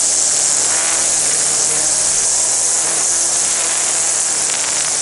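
String trimmer running steadily at high speed, its line whipping into thick, overgrown grass at a sidewalk edge. It makes a loud high hiss over a steady motor drone.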